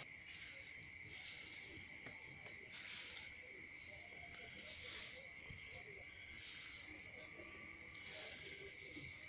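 Crickets and other night insects: a steady high-pitched drone with short trills repeated every second or so.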